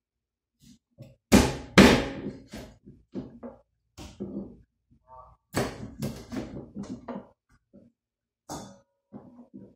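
A blunt kitchen knife chopping chicken feet at a sink, with a series of sharp knocks and clatter of the blade and pieces against the board and stainless steel bowls, the loudest two knocks about a second and a half in.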